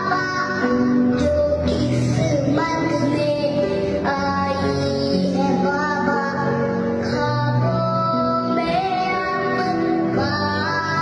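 A young boy singing a song into a microphone with musical accompaniment, holding long notes.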